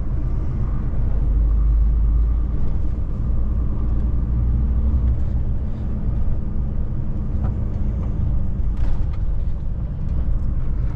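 Heavy goods lorry driving along, its diesel engine and tyres making a steady low drone.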